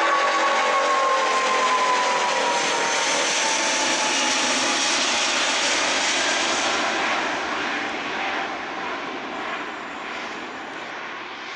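Boeing 787-8 airliner going past on its landing, its Rolls-Royce Trent 1000 jet engines sounding as a loud rush with a whine that falls in pitch as it passes, then fading over the last few seconds.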